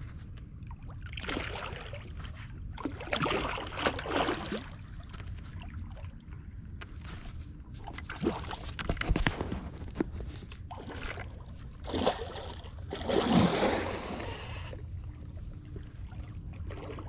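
Water splashing and sloshing in several bursts as a hooked catfish thrashes at the surface close to the bank, over a steady low rumble.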